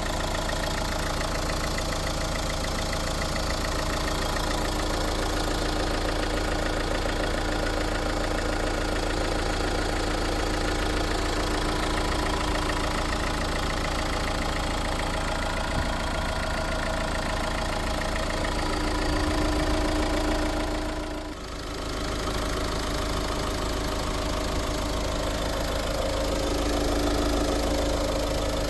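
Opel Insignia B's 2.0 CDTI B20DTH four-cylinder turbodiesel idling steadily, with a new camshaft chain and tensioner fitted. The level dips briefly about three-quarters of the way in.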